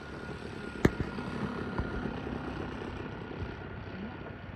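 Distant radio-controlled model warplane (a J2M Raiden) running its motor with a steady thin whine as it rolls along the runway, over a steady hiss. A single sharp click about a second in.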